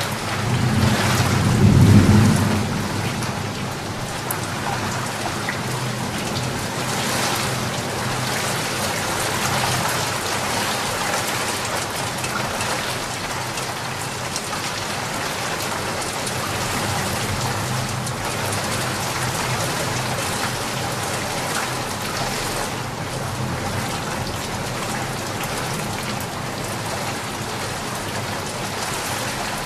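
Steady rain falling in a continuous hiss, with a low rumble of thunder that swells and fades in the first few seconds.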